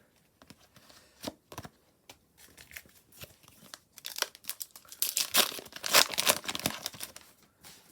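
A foil trading-card pack being torn open and crinkled. A few light handling clicks come first, then about four seconds in a burst of tearing and crinkling lasts roughly three seconds.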